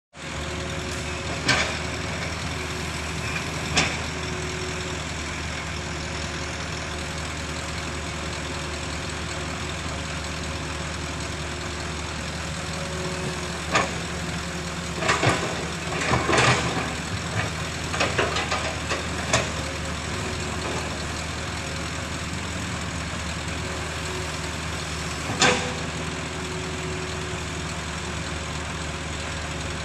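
A heavy vehicle engine runs steadily throughout. Sharp knocks come several times, with a cluster of them a little past the middle.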